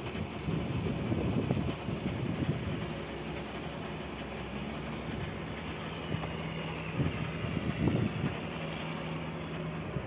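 Fishing boat's engine running steadily at sea, a low hum under the rumble of wind and water, with louder gusts near the start and about eight seconds in.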